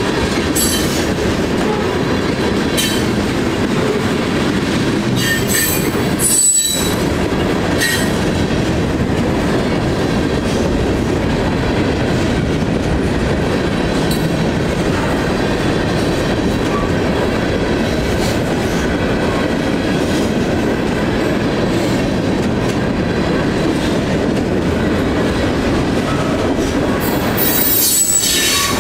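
Freight train rolling by: a steady rumble of wheels on rail with some clatter, broken by a few short, high wheel squeals, most clearly about six seconds in and near the end.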